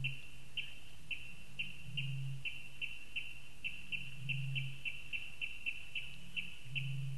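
Eurasian bittern booming: short, deep booms about every two seconds. Over it, another bird gives a steady run of short high chirps, two to four a second, quickening in the middle.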